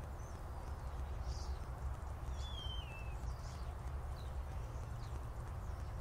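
Faint chirps and calls from a flock of small birds perched in a tree, with one wavering whistle falling in pitch about two and a half seconds in. A steady low rumble is louder than the birds.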